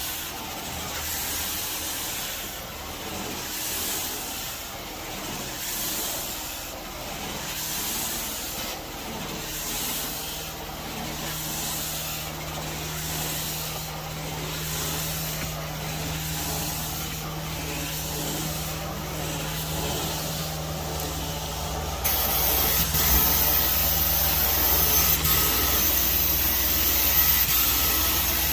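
Four-jet titanium carpet-cleaning wand worked over carpet in even strokes, its spray and vacuum hiss swelling and fading about every one and a half seconds over a low steady hum. About three quarters of the way through, the hiss jumps louder and steadier.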